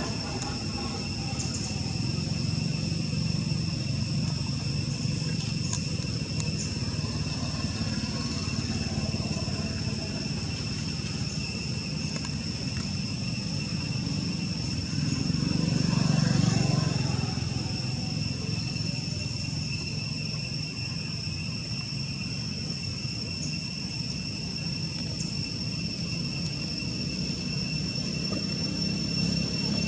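Outdoor ambience: a steady high-pitched insect drone over low rumbling that swells for a few seconds about halfway through.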